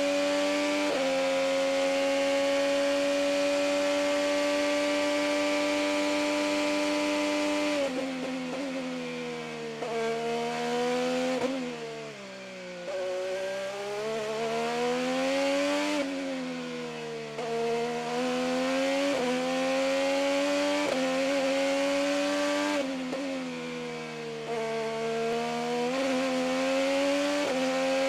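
IndyCar's turbocharged 2.2-litre V6 at full racing pace, heard onboard. It is held at high revs on a steady note for about the first eight seconds. Then the pitch drops in steps as the car brakes and downshifts into a slow corner, lowest around twelve seconds in. From there it climbs again in repeated rises, each cut by a quick upshift, with more braking dips and upshifts through the corners that follow.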